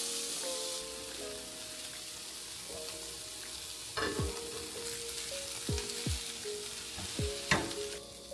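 Kimchi fried rice sizzling in a frying pan as it is stirred, with a couple of sharp knocks of the utensil against the pan, the loudest near the end. Soft lo-fi background music plays under it.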